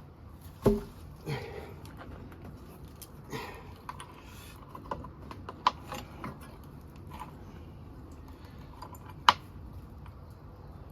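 Irregular knocks, clicks and scuffs of a person clambering up, with a sharp knock about a second in and another near the end.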